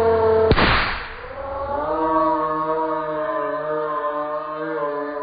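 A giant balloon bursting with a single sharp pop about half a second in. Held, slightly wavering chant-like singing tones sound before the pop and again from about two seconds in.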